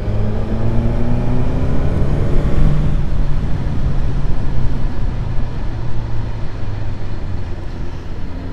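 Suzuki GSX-S1000GT's inline-four engine under way, pulling up in revs over the first three seconds or so, then holding a steady cruise.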